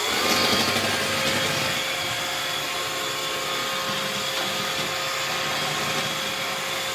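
iRobot Roomba robot vacuum running on the floor: a steady motor whine with a broad suction hiss.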